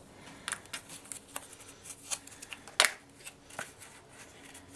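Light clicks and taps of a small clear plastic pot being handled, opened and set down on a table, with one sharper click about three seconds in.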